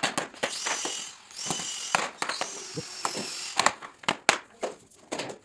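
A hammer tapping a block against the edge of a wood-look floor plank to knock it into the joint, in a run of irregular sharp knocks. A steadier mechanical whirring runs under the knocks for the first three seconds or so.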